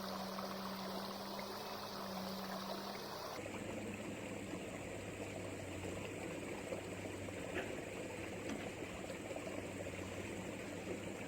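Steady outdoor noise like flowing water, with a steady low hum underneath; the background changes abruptly about three seconds in.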